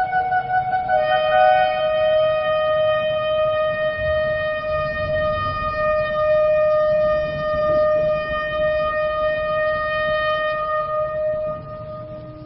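Shofar blown in one long, steady note held for about ten seconds. It shifts to a slightly lower pitch about a second in and fades out near the end.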